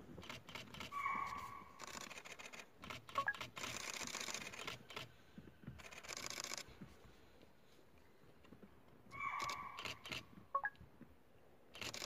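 Camera shutters clicking, single shots and rapid bursts, aimed at a tiger. A short tonal sound, higher and steadier than the clicks, comes about a second in and again about nine seconds in.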